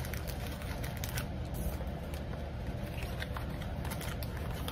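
Light rustling and scattered soft clicks as a plastic bag of drills and sticker sheets are slid back into a small cardboard box and its top is closed.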